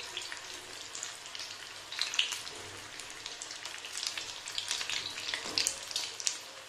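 Breadcrumb-coated corn cheese balls deep-frying in hot oil: a steady sizzle with scattered crackling pops.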